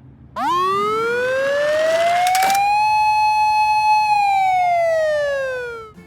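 Toy ambulance's electronic siren sounding one wail: it starts suddenly about half a second in, rises in pitch, holds, then falls and dies away near the end. A short click comes partway through.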